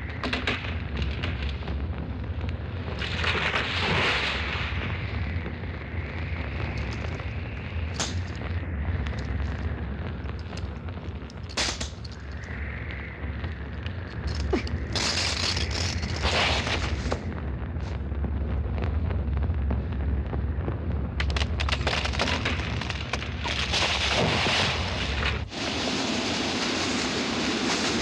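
Film sound effects of fire and explosions: a constant deep rumble with repeated loud bangs and rushing bursts. Near the end the rumble stops and a steadier rushing noise takes over.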